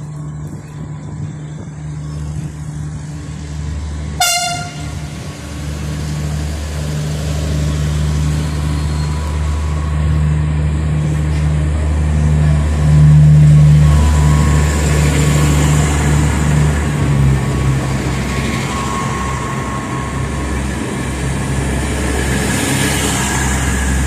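Diesel passenger train pulling away from a station: its engine runs steadily and grows loudest about halfway through, with one short horn toot about four seconds in.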